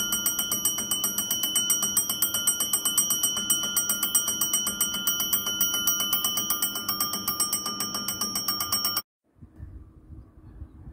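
Railway station's electric warning bell ringing continuously with rapid, even strikes, sounding to announce an approaching train; it cuts off sharply about nine seconds in, leaving a faint low rumble.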